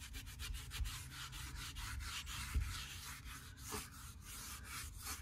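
A cloth rubbed by hand back and forth over the boat's painted fiberglass hull in quick repeated strokes, wiping down the freshly polished surface.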